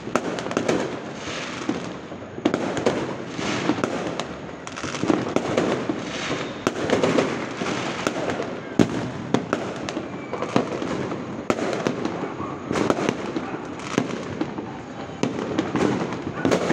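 Fireworks going off all around: many sharp bangs scattered throughout over continuous crackling, with no real pause.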